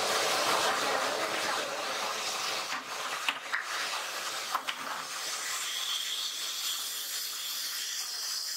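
Steady hissing background noise of plastic-workshop machinery, with a few light clicks near the middle.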